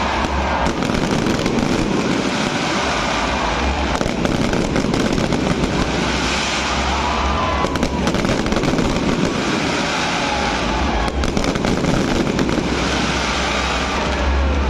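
Fireworks display going off: a continuous din of bursts and crackling over a low rumble, with clusters of sharper cracks about four, eight and eleven seconds in.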